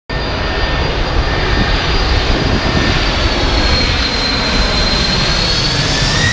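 Boeing 747's four turbofan engines on final approach, a loud steady jet noise with a thin high fan whine above it.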